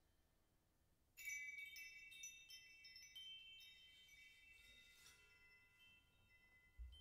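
High-pitched metal percussion struck in a quick cluster about a second in, several bright chime-like tones ringing on and slowly dying away. A few more light strikes follow, and a soft low thump comes near the end.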